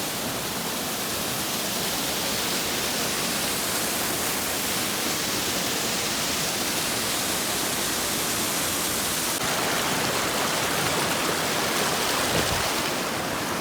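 River water rushing: a steady, even rush that gets a little louder about nine and a half seconds in.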